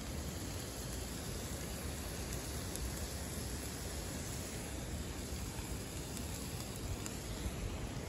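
Steady rushing noise of a nearby waterfall, an even roar.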